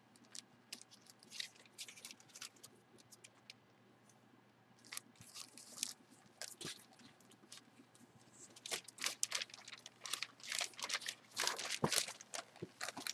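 Clear plastic bag crinkling and rustling as a jersey inside it is handled, in short scattered crackles that grow busier in the second half.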